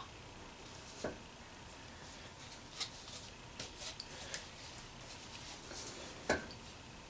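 Hard plastic handling noises from PVC pipe and coupling pieces being fitted together with PVC cement: a light knock about a second in, a run of small clicks in the middle, and a sharper knock near the end.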